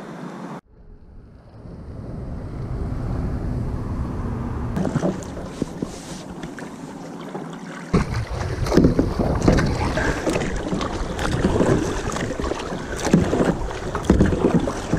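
Kayak paddle strokes dipping and splashing in the water, with wind rumbling on the microphone. The strokes come in uneven surges and start abruptly about halfway through, after a quieter stretch of steady water-and-wind wash.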